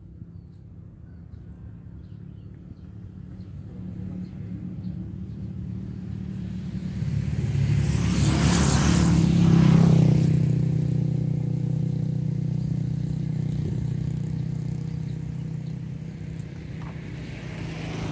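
A motor vehicle's engine passing by with a steady low hum. It grows louder to a peak about halfway through, then slowly fades away, and another engine starts to approach near the end.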